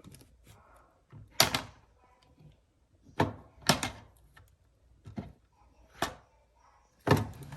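Movie cases being handled on a shelf: about seven sharp, irregular clacks and knocks with short pauses between them.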